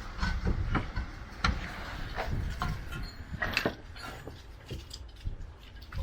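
Irregular clicks and knocks of hand tools on metal, one or two a second, from work on the car's suspension.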